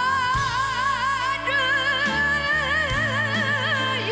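A woman singing a slow Korean song live into a microphone, holding long notes with wide vibrato over instrumental backing; the sung line drops lower about a second and a half in.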